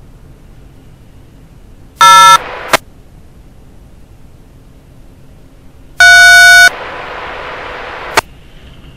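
Railroad radio scanner feed: two loud touch-tone beeps, a short one about two seconds in and a longer one about six seconds in. Each is followed by a hiss of open-channel static that ends in a sharp squelch click.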